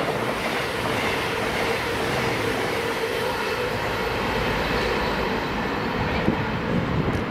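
CrossCountry Voyager diesel multiple unit running through the station at speed: a steady rush of engine and wheel-on-rail noise with a constant mid-pitched whine underneath.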